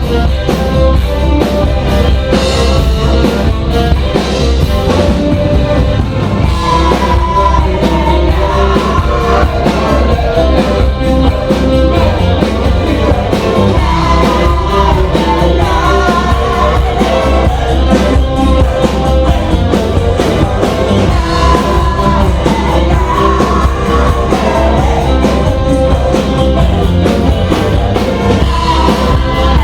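Rock band music with a singer: drums and bass playing steadily under a sung melody.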